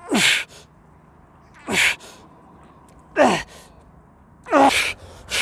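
A man's loud, forceful exhalations while straining to hold a crow-pose balance: four hissing out-breaths about a second and a half apart, each with a groan that falls in pitch.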